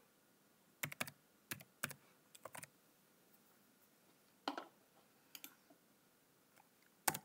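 Keystrokes on a computer keyboard: about a dozen sharp taps in small, irregular runs as a short word is typed.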